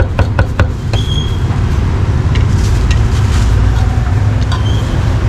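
Quick cleaver chops on a chopping block, about four a second, stopping under a second in. A steady low rumble of street traffic then fills the rest.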